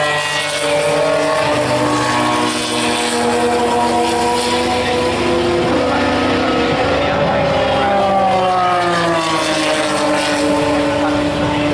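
Several Formula 3 race cars' 3.4-litre V6 engines running at racing speed around the circuit, their notes overlapping. The pitches climb and drop as the cars go through the gears and pass by.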